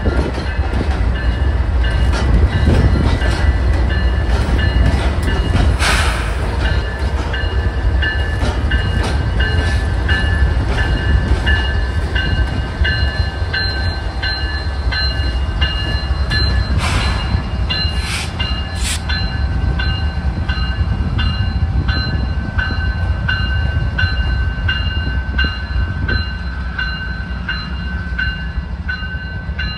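Three GE diesel-electric locomotives, two AC4400CWs and an ET44AC, running light past at close range: a heavy steady engine rumble with wheels clicking over the rail joints. A bell rings steadily in even strokes, and a few short hissing bursts come through in the middle.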